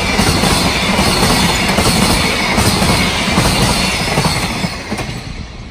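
Container freight train passing at speed, its wagon wheels clattering in a repeating beat over the rail joints. The sound fades away near the end as the last wagon goes by.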